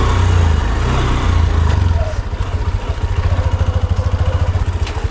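Honda Shine's single-cylinder four-stroke engine running at low revs as the motorcycle creeps over a rough trail. Its firing makes an even, rapid low pulsing that stands out more clearly from about two seconds in.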